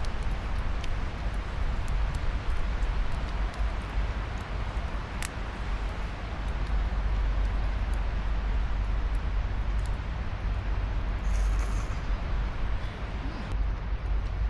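Strong wind buffeting the microphone: a steady, deep rumble with a rushing hiss over it and a few faint ticks.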